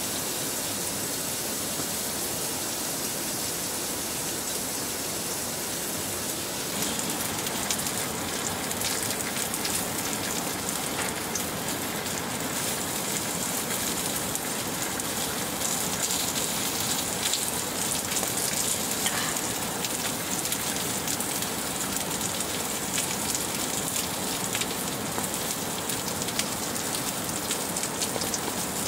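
Steady rain falling on tent fabric, heard from inside the tent. About seven seconds in it grows a little louder and crisper, with many separate drop ticks.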